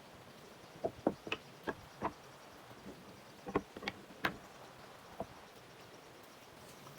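Irregular light knocks and taps, about a dozen, unevenly spaced, with the loudest a little past four seconds in, as of wood and tools being handled at a workbench.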